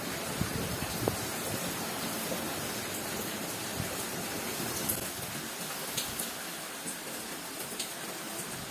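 Steady rain falling, an even hiss with occasional sharp drips.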